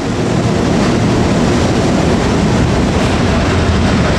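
FS E.656 articulated electric locomotive with rheostatic control, its twelve traction motors running with a steady roar.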